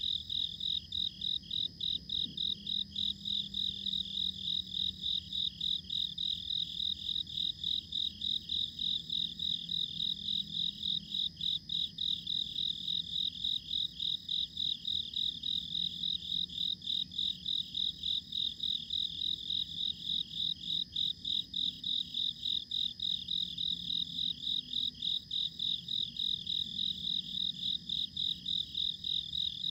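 Chorus of night insects chirping, a high pulsed sound in an even, unbroken rhythm, over a faint low hum.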